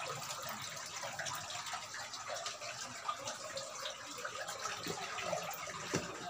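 Water trickling and dripping inside a rock cave, a steady wash scattered with small drip ticks. There is a sharper knock near the end.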